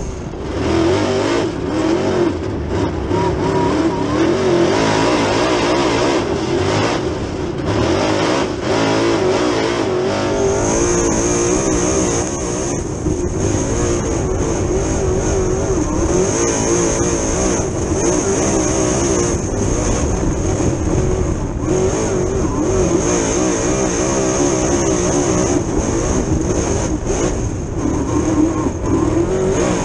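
Dirt late model race car's V8 engine at racing speed, heard from inside the cockpit, its revs rising and falling continuously through the laps. A steady high whine joins about ten seconds in.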